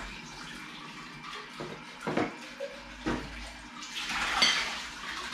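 Kitchen tap running in a steady stream, with a few light clinks of tableware as food is served from a pot.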